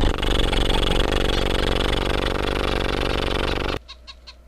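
An engine running steadily with a rapid firing pulse, cut off abruptly just before the end, followed by three faint short pips.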